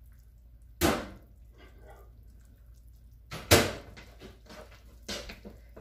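Kitchenware knocking as it is handled: two loud sharp knocks about a second in and two and a half seconds later, each ringing briefly, and a fainter knock near the end.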